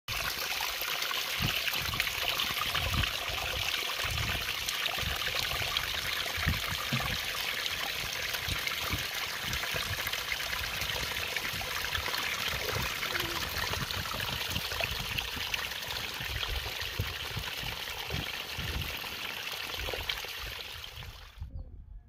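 Water of a small mountain stream trickling and splashing over mossy rocks: a steady, even rush, with irregular low rumbles underneath. It cuts off suddenly just before the end.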